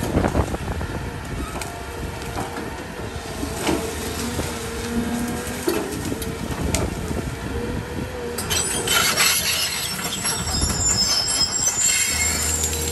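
CAT 320 hydraulic excavator running with a steady tone while its bucket rips through brush, with branches cracking and snapping. The crackling of breaking wood grows dense about two thirds of the way in.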